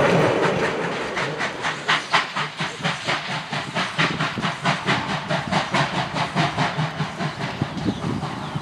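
Class 19D steam locomotive's exhaust beating in a steady rhythm of sharp chuffs, about four a second, with a hiss of steam. In the first second, a rumble of coaches rolling away along the rails.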